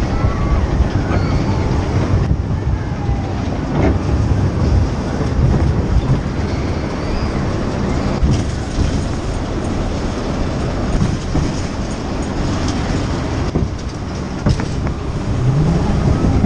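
Jungle river boat ride in motion: a continuous loud mechanical rumble with clattering, with a short rising mechanical tone near the end.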